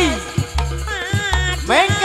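Live jaranan accompaniment music: a repeating low drum beat under held melodic tones, with a chanting singer's voice sliding in pitch between sung lines.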